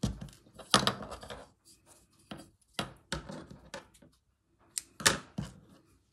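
Sewing things handled on a plastic cutting mat: a reel of cotton thread and a pair of scissors picked up and set down, and the scissors snipping a length of thread. A series of sharp clicks and taps, the loudest just under a second in and again about five seconds in.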